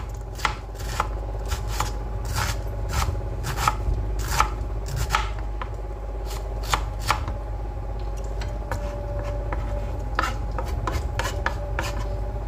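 Kitchen knife slicing cabbage on a cutting board: irregular sharp knocks of the blade hitting the board, about one or two a second, with a short pause in the later part.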